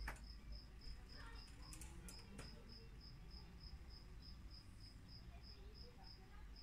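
Faint, steady chirping of a cricket, evenly repeated at about three chirps a second, with a few soft clicks in the first couple of seconds.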